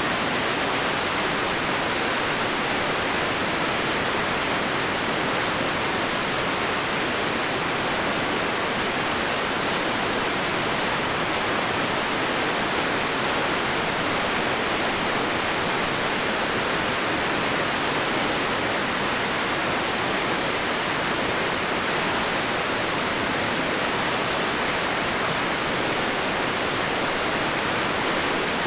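White water of a river waterfall rushing steadily, an even hiss-like wash with little low rumble and no change in level.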